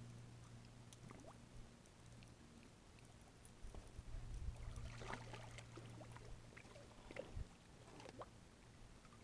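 Faint sounds of a hooked flathead catfish being played in to a rocky bank: light water splashing and scattered small clicks, over a low steady hum.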